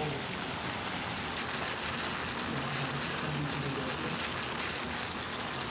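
Dak-galbi sizzling steadily in a large hot pan, a continuous crackling hiss close to the microphone.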